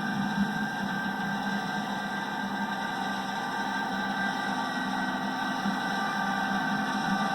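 Combine harvester running steadily: a constant mechanical noise with several held tones that does not change.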